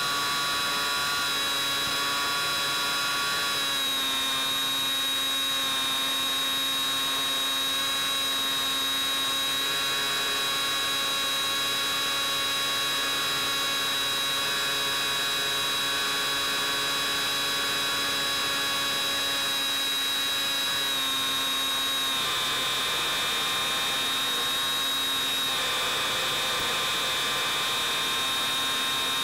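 Electric brushless motor and pusher propeller of a Bixler 3 foam FPV plane in flight, picked up on board: a steady whine of several stacked tones whose pitch shifts in steps a few times.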